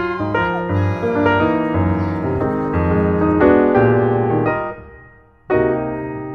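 Background music led by piano, playing a run of chords and melody notes; the sound fades away about five seconds in, and a new chord comes in soon after.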